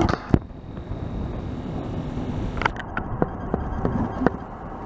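Wind rumbling on the microphone at a harbour quay, with a few scattered knocks and clicks from ropes and an inflatable dinghy being handled.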